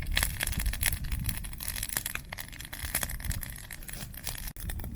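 Campfire crackling with many irregular sharp pops and snaps, over a low rumble.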